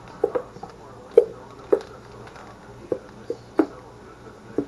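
Irregular short clicks and taps, about two a second, of plastic barbecue-sauce bottles and zip-top freezer bags being handled on a countertop.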